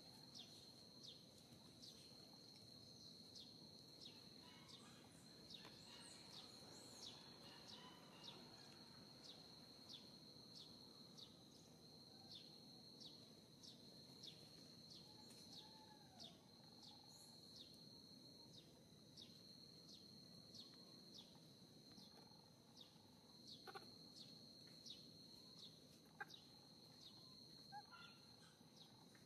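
Faint outdoor ambience: a steady high insect trill, pulsing a little under twice a second, with a few faint bird calls.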